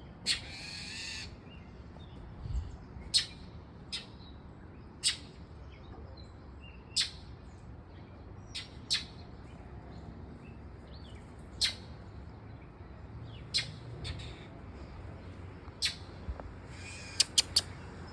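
Birds giving short, sharp calls over and over, about one every one to two seconds, with a longer call near the start and three quick calls near the end. These are the alarm calls of birds diving at and pecking a dog in the yard.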